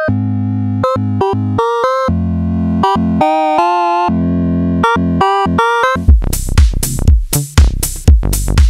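Modal Electronics Cobalt8M virtual-analogue synthesizer playing a short, staccato melodic line of pitched notes over a held low chord. About six seconds in, a punchy electronic drum-machine beat comes in under it.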